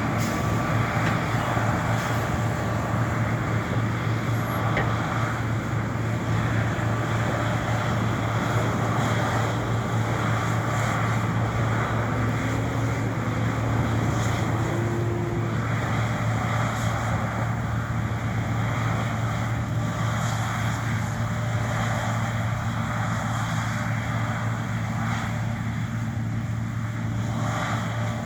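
John Deere T670i combine harvester running steadily while cutting: a constant deep engine drone with a wash of machine noise over it.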